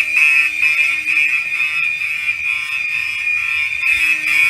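Fire alarm sounders going off during a system test: a loud, high-pitched electronic alarm tone that runs steadily, with a pulsing pattern coming back near the end.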